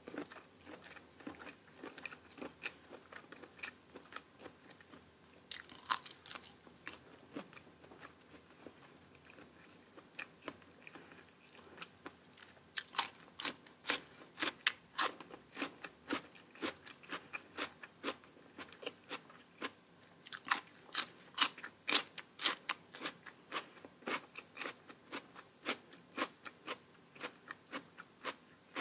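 A person chewing and biting food close to the microphone, with crisp crunches and wetter chewing between them. The crunches come in two louder, faster runs, about halfway through and again about two-thirds in.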